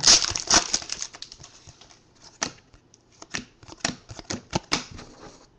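Trading cards being handled and flipped through by hand: a dense, loud crackle of card stock and foil pack wrapper in the first half-second, then sharp, irregular snaps and clicks of single cards.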